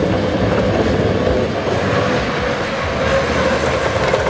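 International single-axle plow truck passing close while plowing: its diesel engine running under load and the steel plow blade scraping snow along the road, a steady rumble with scraping noise over it.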